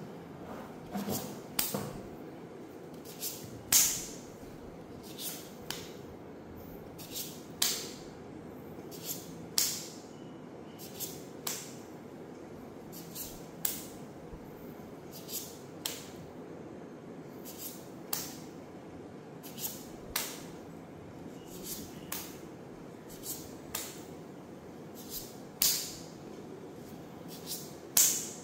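Sharp taps or clicks, about one a second and often in close pairs, over a steady low hum.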